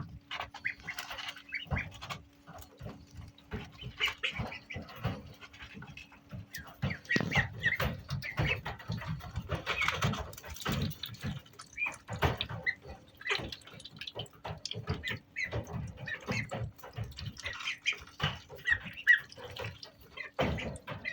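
Indian Runner ducklings peeping, with frequent short knocks and scuffling throughout and a faint steady low hum underneath.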